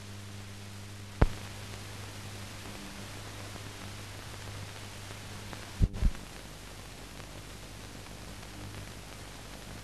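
Steady hiss and low mains hum of a silent film's audio transfer, with no recorded sound of its own. A sharp click about a second in and two pops close together around six seconds in.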